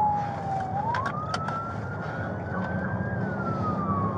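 Police cruiser's siren wailing: one tone that sinks slowly, sweeps up over a couple of seconds, then starts falling again, heard from inside the car over the low rumble of the engine and tyres at speed.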